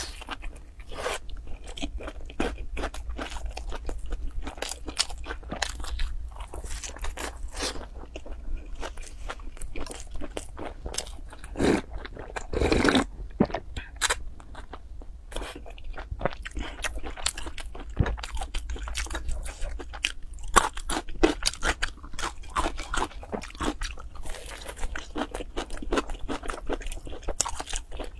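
Close-up mouth sounds of eating: biting into and chewing a crusty baked bun, with many small crunches and wet mouth clicks. About halfway through comes a louder slurp of noodles, lasting a second or two, before the chewing goes on.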